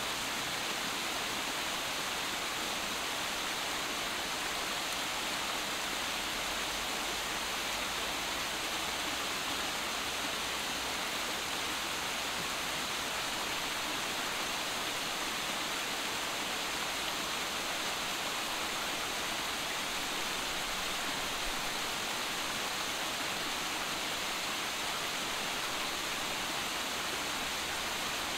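Small waterfall spilling over boulders into a rocky stream, a steady, unchanging rush of water.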